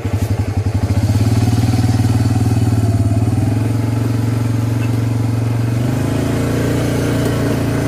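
Three-wheeler ATV engine running steadily under load as it tows a post by rope, its revs rising a little about six seconds in.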